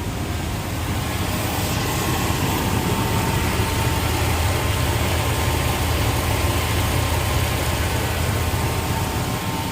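1997 Chevy C2500's 5.0-litre V8 idling steadily, running on a freshly replaced idler pulley and serpentine belt.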